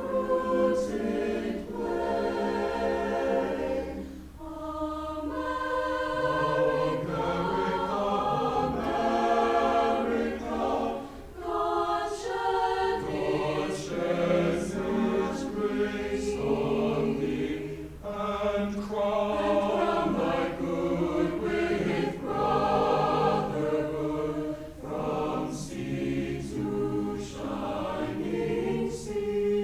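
High school concert choir singing, holding sustained chords, with a low steady hum underneath.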